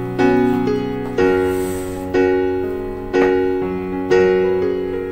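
Background piano music: chords struck about once a second, each one ringing and fading before the next.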